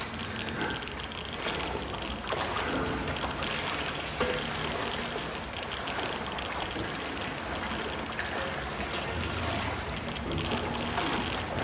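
Water sloshing and trickling around people wading through flooded corridors.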